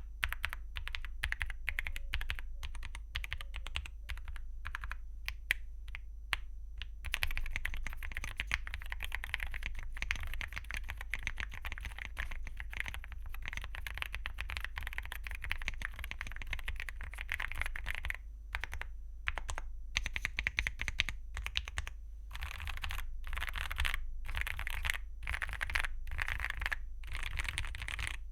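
Typing on a MonsGeek M1 V5 mechanical keyboard with AKKO Rosewood linear switches and Cherry-profile double-shot PBT keycaps. Separate keystrokes come first, then fast continuous typing from about seven seconds in, then short bursts of typing with pauses between them in the last third.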